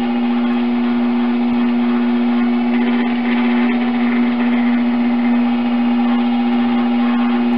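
Electric potter's wheel running steadily, its motor giving a constant hum over a faint hiss while the wheel head spins with clay on it.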